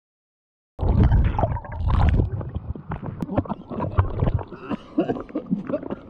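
Water turbulence and bubbling heard with the camera underwater in a fast mountain stream, starting about a second in and loudest at first. The camera then comes up into splashing, rushing stream water with a man gasping and faint voices.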